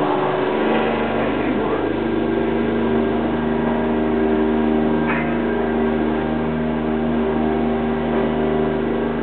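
Steady droning hum of several held tones, the mystery noise in a cruise ship's aft elevator shaft, which the passengers take for wind setting up vibrations in the shaft. A higher tone joins the drone about half a second in.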